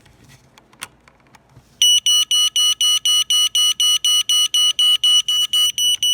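Built-in smoke alarm of a Sharper Image clock radio sounding on test: a high electronic beep pulsing about five times a second, starting about two seconds in. The owner finds it sickly and far quieter than a smoke alarm should be, a sign of a weak sounder.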